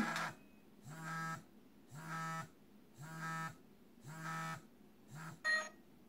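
Wireless caregiver-alert chime receiver buzzing in five short, evenly spaced pulses about a second apart, then a brief higher beep near the end: its signal that it has paired with a newly pressed transmitter.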